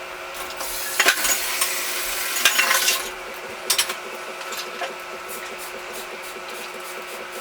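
Small metal clicks and scraping of a Torx screwdriver working tiny screws and springs into the radio's LCD frame. There is a scraping, rattling stretch in the first three seconds, then a few isolated clicks, over a steady faint hum.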